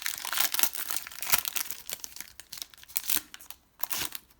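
Foil Pokémon TCG booster-pack wrapper crinkling and tearing open, a dense run of crackles that eases off about three and a half seconds in.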